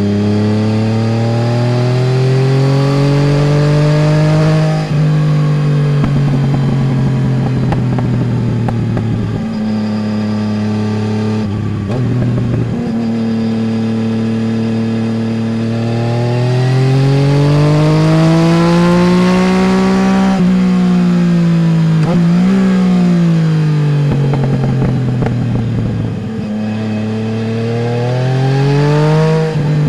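Yamaha Tracer 900 GT's three-cylinder engine through a full Roads Italia aftermarket exhaust, heard from the pillion seat while riding. The revs climb and drop sharply with an upshift about five seconds in, and again near twelve seconds. Then it pulls hard up to a peak around twenty seconds and comes off the throttle, with a quick blip near twenty-two seconds. It climbs again toward the end.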